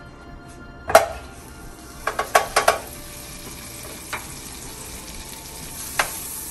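A cube of butter going into a hot nonstick frying pan with a sharp knock about a second in, then a light sizzle as it starts to melt. A few quick clicks of a utensil or spatula follow against the pan.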